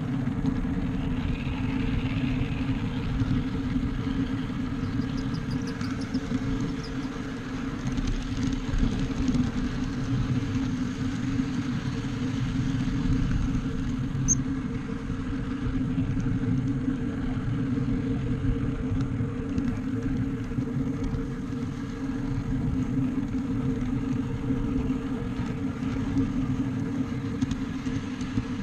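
Miniature backyard railroad train running along its track: a steady low rumble of wheels on rail, with a constant mechanical hum from the locomotive.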